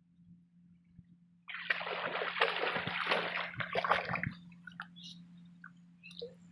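Water splashing and sloshing for about three seconds, starting a second and a half in and then dying away, over a faint steady low hum.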